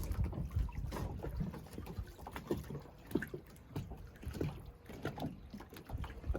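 Water lapping and sloshing against a boat's hull in small irregular splashes, over a low rumble.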